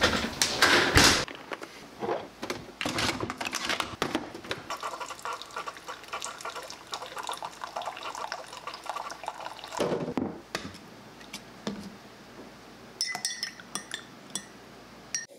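A few loud thuds in the first second, then a Keurig single-cup coffee maker brewing, coffee streaming and dripping into a mug. Near the end a spoon stirs the mug, clinking against its sides with a bright ring.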